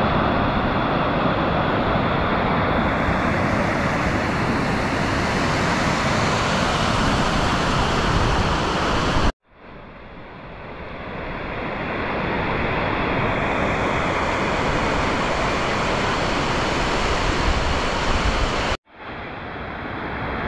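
Fast, swollen water rushing over rocks and cascading down a stepped dam spillway: a steady, loud rush. It drops out briefly twice, about nine seconds in and near the end, and each time it fades back up.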